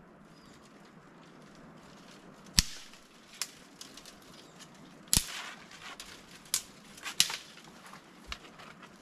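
A series of about six sharp knocks or snaps, irregularly spaced, the loudest about halfway through, over a faint steady background.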